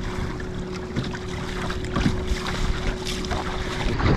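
Fishing boat's motor running with a steady hum, under wind on the microphone; the hum cuts off near the end.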